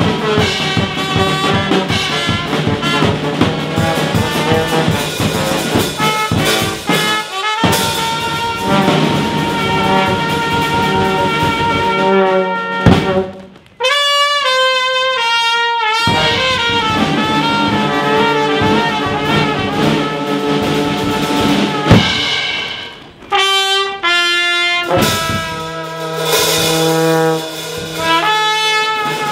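Small live brass band of trumpet, low brass horn and bass drum playing a tune. Two sharp, loud drum hits stand out, the first followed by a brief break before a single horn line carries on.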